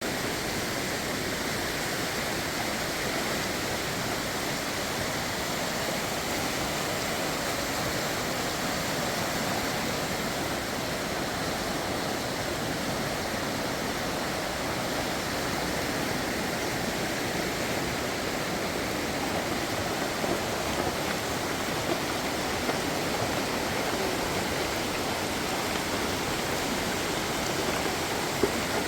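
Swollen stream in flood after heavy rain, its fast water rushing steadily.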